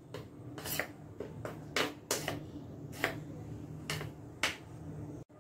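A metal spoon stirring thick idli batter mixed with ground carrot in a small steel bowl, with about six light clinks of the spoon against the bowl's side.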